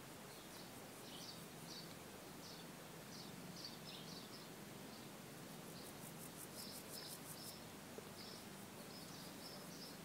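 Faint outdoor ambience: short, scattered bird chirps over a steady hiss, with a high, rapid ticking trill lasting about a second and a half in the middle.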